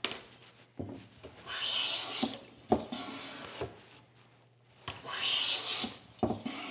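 WoodRiver No. 5½ bench plane taking two strokes along a hardwood board, each about a second of shaving hiss. Short knocks sound as the plane is set down on and lifted off the wood between strokes.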